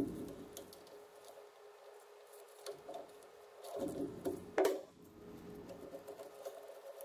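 Faint clicks and taps of hand tools on metal as the mounting bolts are taken out of a front brake caliper, with a busier patch and one louder sharp click about four and a half seconds in. A steady faint hum runs underneath.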